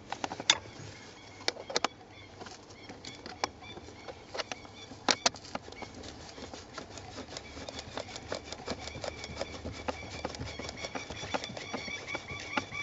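Hand screwdriver driving a screw to fasten a 3D-printed OBD2 port bracket under a car dashboard: a few scattered clicks and knocks, then from about six seconds in a fast run of small ticks as the screw turns.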